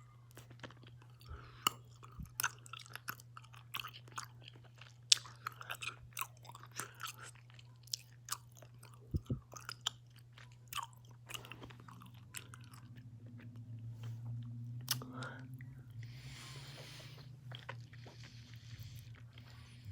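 Close-up mouth sounds of chewing a giant gummy bear: many short, wet clicks and smacks over a steady low hum. Near the end comes a noisy stretch of heavy breathing.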